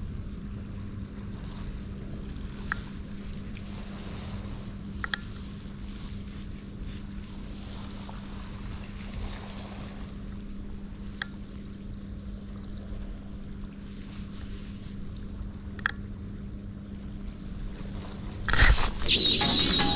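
Seaside ambience at night: a steady low hum over a faint wash of water and wind, with a few sharp ticks scattered through it. Near the end comes a loud rushing burst.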